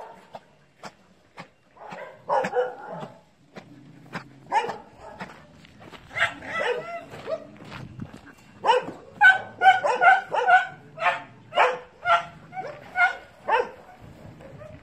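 Dogs barking repeatedly as they play together, a run of short barks that grows thick and fast in the second half.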